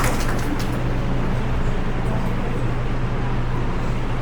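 A steady low electrical hum with background room noise, as from a public-address system between speakers. The last few scattered claps fade out in the first half second.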